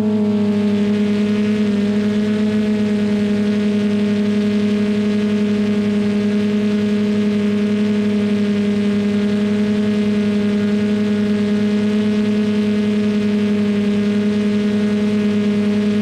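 A steady, loud hum of several held tones, dipping slightly in pitch about a second and a half in.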